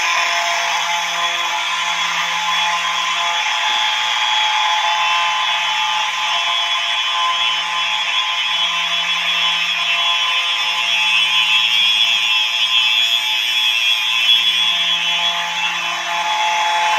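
Several Simplex mechanical fire alarm horns buzzing together, loud and continuous, with a lower buzz that drops in and out every second or two.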